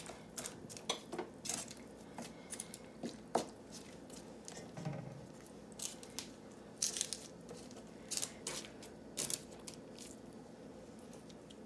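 Raw chicken wings being turned over by hand on a paper sheet: faint, scattered soft taps, rustles and wet squishes of skin and paper.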